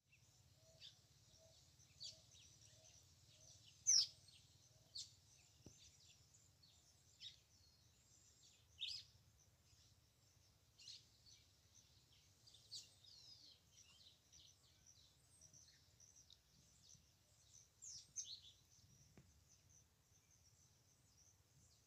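Faint outdoor ambience of scattered short bird chirps and calls, the loudest about four and nine seconds in, over a faint steady low rumble.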